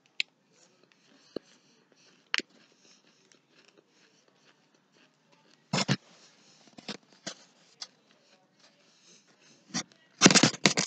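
Chewing a mouthful of crunchy dried flavoured mealworms (Larvets): faint scattered crunches and clicks, with a louder burst about six seconds in and a cluster of louder bursts near the end.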